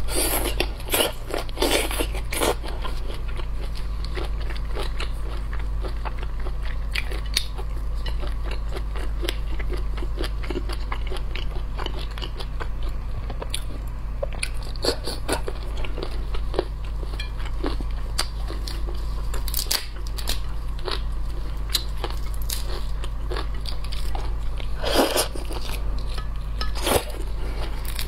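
Close-miked biting and crunching into a whole soy-marinated shrimp, shell and flesh, with wet chewing between the crunches. The crunches come thickest at the start and again near the end, over a steady low hum.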